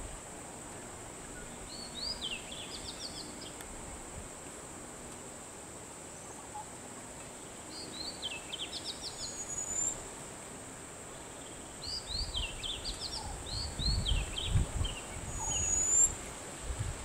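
Songbird singing in three bursts of quick, descending chirped notes, over a steady high-pitched hum. Low rumbling joins in during the last few seconds.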